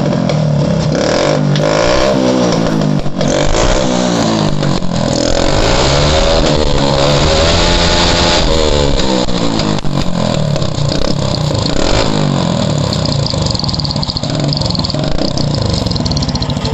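Motorcycle with a cut, home-modified silencer being revved over and over, the engine pitch rising and falling in repeated swells, with a few sharp cracks from the exhaust.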